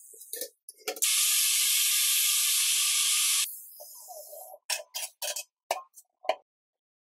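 Angle grinder cutting steel tube, a steady grinding hiss lasting about two and a half seconds. It is followed near the end by a quick series of sharp metal knocks as steel parts are handled and set down.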